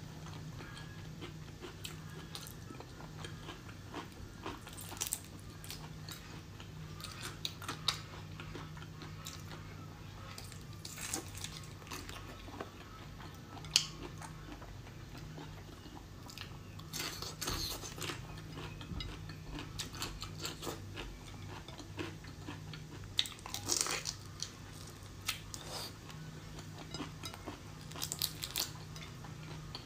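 Close-miked eating of large shrimp in soy marinade: scattered crunches of shell, wet chewing and handling clicks, with one sharp click about halfway. A steady low hum runs underneath.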